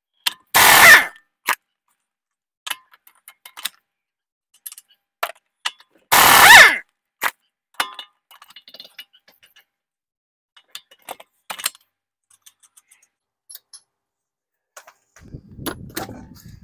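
Pneumatic impact wrench hammering lug nuts loose on a car's front wheel in two short bursts, about a second in and about six seconds in. Small metallic clinks of sockets and nuts come between them, and near the end a low scuffing rumble as the wheel is handled.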